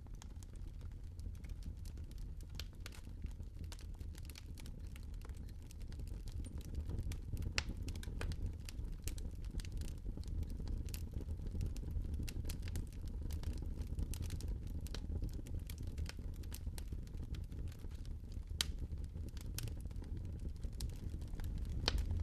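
Dry leaves being crushed: a dense, irregular run of crackles and snaps over a steady low rumble.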